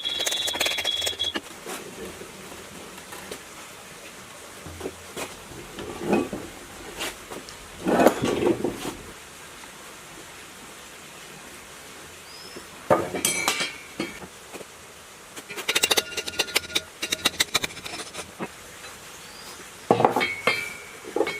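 Metal parts and tools clinking and knocking in separate bursts, some with a brief metallic ring, and a quick run of small clicks a little past the middle.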